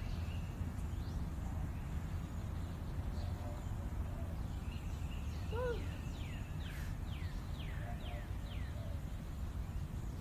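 A songbird sings a run of six or seven short, quickly down-slurred whistled notes from about halfway through to near the end, with scattered fainter chirps. Under it runs a steady low outdoor rumble.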